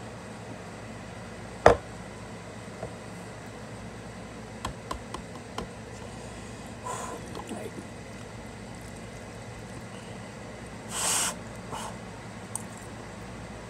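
Sounds of eating ramen with a fork from a plastic container: a single sharp knock about two seconds in, light clicks of the metal fork against the plastic tub, and a short hiss-like burst near the end.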